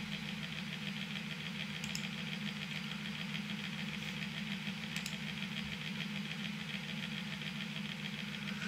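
Steady low background hum from a running machine, with two faint clicks about two and five seconds in: computer mouse clicks while navigating a web page.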